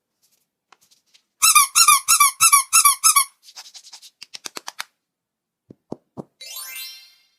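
About six loud squeaks in quick, even succession, about three a second, followed by a rapid run of light clicks and a few short low blips, then a rising whistle-like glide near the end.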